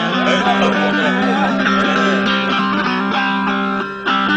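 Turkmen dutar, a two-stringed long-necked lute, played solo in an instrumental passage of a folk song, with a steady low note sounding under the melody; the playing drops away briefly just before the end.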